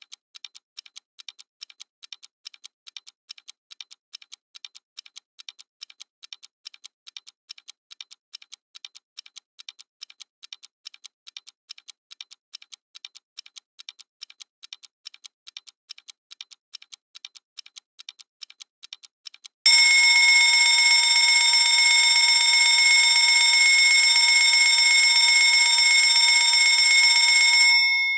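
Fast, even stopwatch ticking, several ticks a second, until the minute is up about twenty seconds in; then a loud alarm rings steadily for about eight seconds, several held high tones at once, and stops suddenly near the end, leaving a faint ringing tail.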